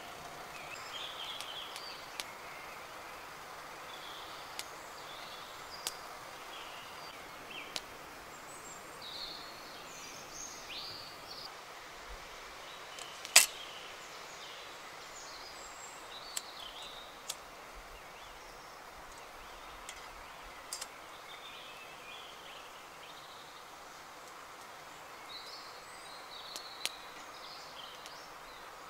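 Woodland at dusk: scattered bird calls over a steady background hiss. Now and then there are small sharp clicks and knocks as camp gear is handled, and the loudest knock comes about halfway through, while a hurricane lantern is being handled.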